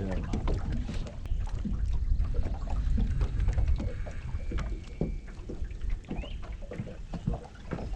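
Low wind rumble on the microphone aboard a fishing boat, with scattered small knocks and splashes from the boat and gear.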